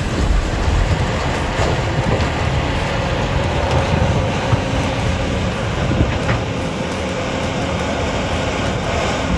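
Caterpillar 349F hydraulic excavator's diesel engine running under load while digging, a steady low rumble with a few short knocks from the machine and bucket.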